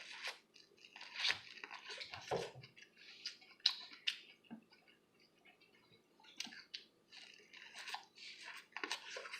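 Close-up biting and chewing of grilled sweet corn on the cob: irregular crisp, crunchy bites and chews, with a pause of about a second and a half in the middle.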